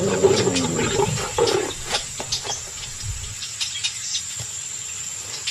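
Bengal tiger growling low for about the first second and a half, then fading to quieter rustling with scattered faint clicks.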